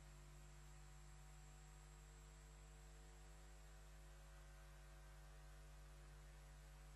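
Near silence, with a steady low electrical hum.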